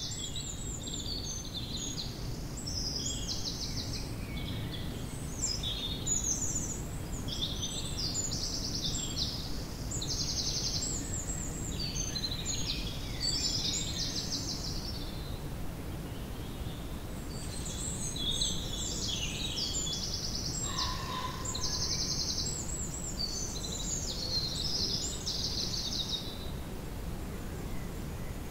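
Songbirds chirping and trilling in quick, high phrases, with a short lull about halfway through, over a steady low rumble.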